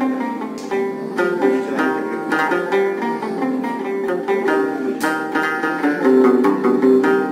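Kashmiri rabab played solo: a steady run of quick plucked notes in a melody, with strokes a little louder about six seconds in.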